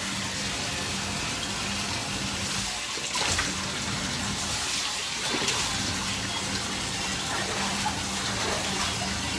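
Water running steadily and splashing into a bathtub.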